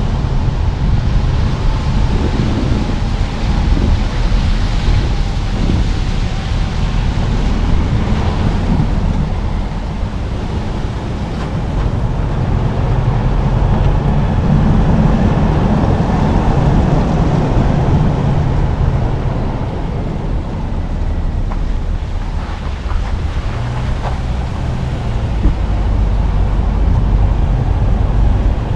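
A car driving along a road: steady low rumble of engine and tyre noise with wind noise, rising and falling a little in level.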